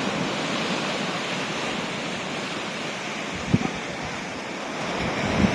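Sea waves washing onto the shore in a steady rush, with wind buffeting the microphone and a brief low thump about three and a half seconds in.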